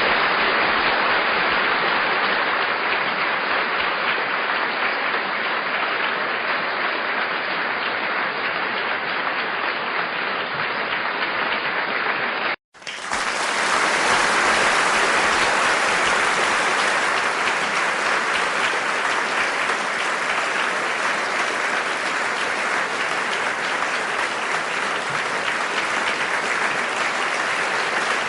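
Audience applauding steadily: two separate applause recordings, the first cutting off about twelve seconds in and a second starting straight after it.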